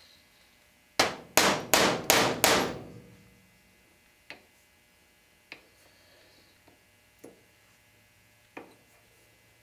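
Five quick hammer taps on a pin punch, driving the firing pin's retaining pin out of a Rossi Model 69 revolver's steel hammer set in a plastic bench block, each with a short metallic ring. A few light clicks of small steel parts follow.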